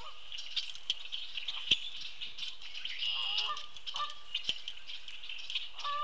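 A mixed flock of red-winged blackbirds, common grackles and European starlings chattering and calling at a feeder, with short clicks and taps throughout. A few lower, honk-like calls come about three seconds in, again near four, and once more near the end.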